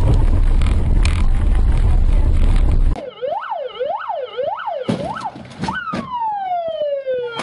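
Loud, steady road and engine rumble that cuts off abruptly about three seconds in. After that comes an emergency vehicle siren: quick rising-and-falling wails, about two a second, then one long wail that falls slowly in pitch. Two sharp knocks sound partway through.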